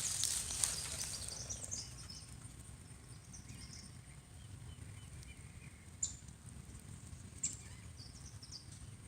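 Quiet outdoor ambience with a low steady hum and faint, scattered bird chirps. A brief rustle comes at the start, and two sharp clicks come about six and seven and a half seconds in.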